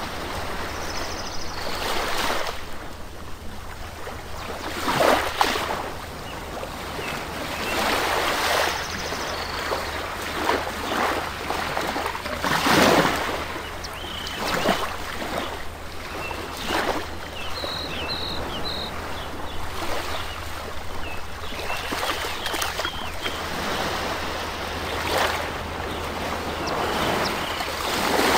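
Rushing, splashing water noise from an aquarium's running water, swelling and easing every few seconds, with a few faint short high chirps.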